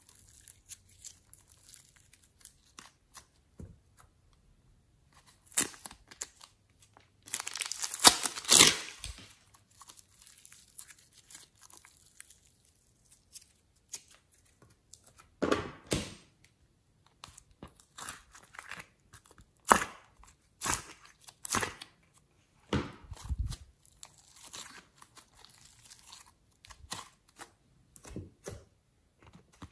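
Hands squishing, stretching and pulling apart soft slime and clay, and pressing it into a glass tray: sticky crackling and tearing noises in irregular bursts, loudest about eight seconds in.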